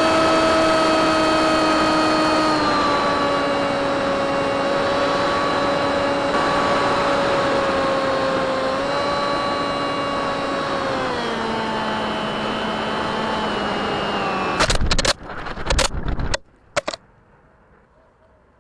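Small model plane's motor and propeller whining in flight with wind rush, heard from its onboard camera, the pitch stepping down a few times. About fifteen seconds in, a quick run of loud knocks as the plane strikes a tree and the camera breaks off and falls to the ground, then only a faint background.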